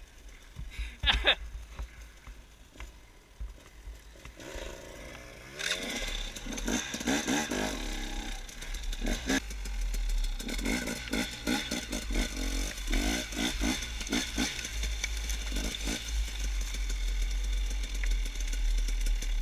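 Dirt bike engine running and revving up and down, its pitch rising and falling with the throttle. A few sharp knocks about a second in; the engine gets much louder about five or six seconds in and stays loud.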